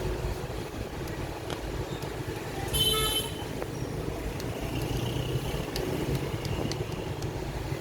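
Steady low rumble of road traffic with a single short vehicle horn toot about three seconds in, and a few faint small clicks.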